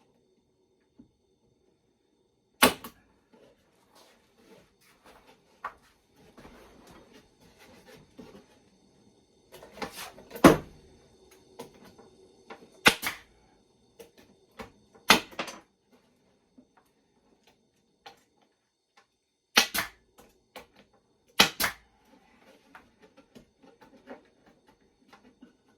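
Pneumatic staple gun driving 1-inch staples into 1/2-inch plywood: about seven or eight sharp shots at irregular intervals, some in quick pairs, with quieter clatter of boards being handled between them.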